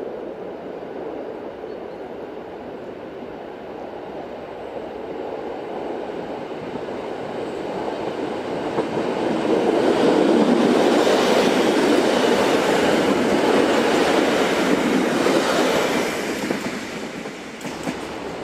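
EN57AL electric multiple unit approaching and running past on the rails, its wheel and running noise building up, loudest for about six seconds as the cars go by, then fading away.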